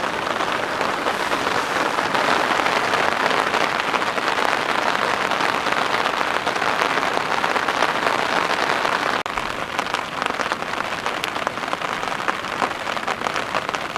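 Steady, dense rain falling, heavy with big drops. The sound dips slightly and changes just after nine seconds.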